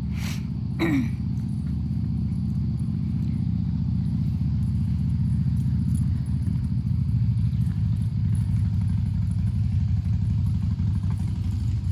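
Vehicle engine running steadily at low speed, a continuous low drone, with a short click and a brief falling squeak about a second in.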